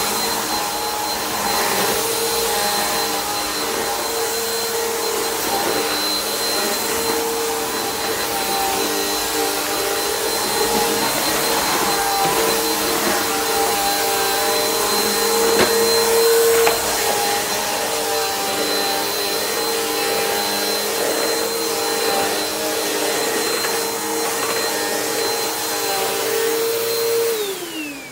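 Bissell PowerForce Helix upright vacuum cleaner running steadily with a high motor whine, then switched off about a second before the end, its pitch falling as the motor spins down.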